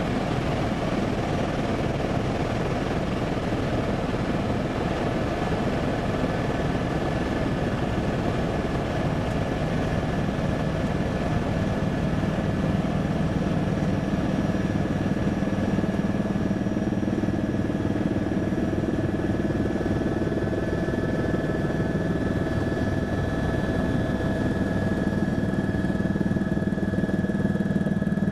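Helicopter engine and rotor noise heard inside the cabin in flight: a steady dense rumble with a constant high whine, its low hum growing stronger about halfway through.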